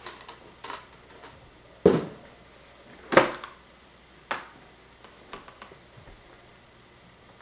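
Cardboard box being opened and handled by hand, its flaps folding back, with a series of sharp knocks and rustles. The loudest knocks come about two and three seconds in.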